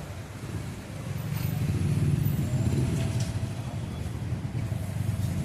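Street traffic: a motor vehicle's engine hum growing louder about a second in as it passes, over general street noise.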